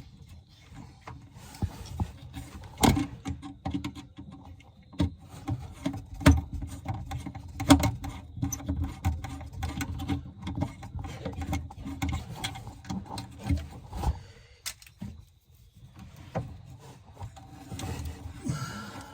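Hand work on electrical cable: irregular clicks, snips and rubbing as wire ends are cut back and stripped with a hand tool, with a short lull about two-thirds of the way through.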